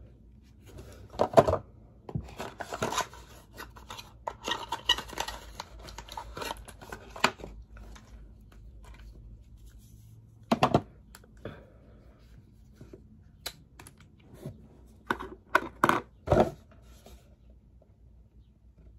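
Hard plastic parts of a Clarisonic facial cleansing brush being handled and fitted together: scattered sharp clicks and knocks, the loudest about a second in and a cluster around 15 to 16 seconds in. Rustling and scraping of plastic runs between about two and seven seconds in.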